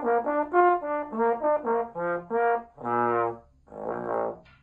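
Trombone playing a quick run of short notes that jump up and down in pitch, changed by lip tension alone without moving the slide (lip slurs). It ends with two longer notes, the last one lower and rougher.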